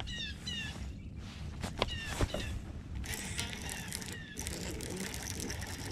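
Birds calling in short runs of quick, falling chirps over a steady low rumble, with a couple of sharp knocks about two seconds in. A dense hiss comes in at about three seconds.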